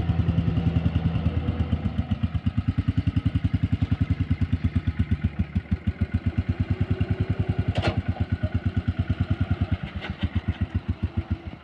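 Tecumseh engine of an old John Deere garden tractor running at low speed with evenly spaced firing pulses, weakening near the end as it stalls; the engine runs poorly. A single sharp clack about eight seconds in.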